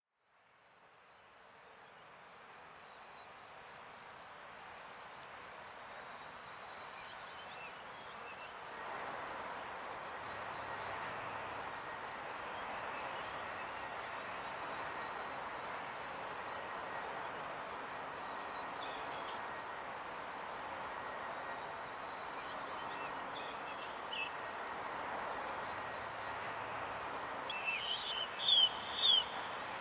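Steady, fast-pulsing high chirring like crickets, fading in at the start, over a soft haze of outdoor noise. Near the end come a few short sweeping chirps, the loudest sounds.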